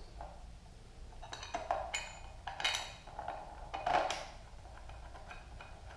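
Windscreen mounting brackets clinking and rattling as they are handled and held against the motorcycle's front cowl: a few short metallic clinks, spread a second or so apart.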